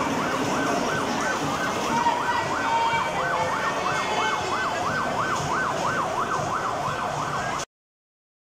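Miniature ride-on ambulance's electronic siren sounding a fast rising-and-falling yelp, about three sweeps a second. It cuts off suddenly near the end.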